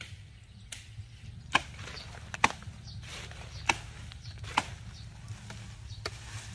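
Machete chopping through brush and branches: about six sharp strikes, spaced irregularly about a second apart.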